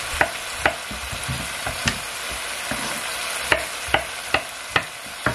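Kitchen knife chopping tomatoes on a wooden cutting board: about eight sharp knocks of the blade on the board, unevenly spaced and quicker in the second half, over a steady hiss of food frying in the pot.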